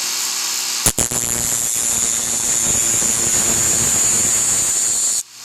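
Dremel rotary tool running at high speed while a drill bit's tip is ground against it to sharpen it: a steady, high-pitched grinding hiss. There is a brief break about a second in, and the sound cuts off suddenly near the end.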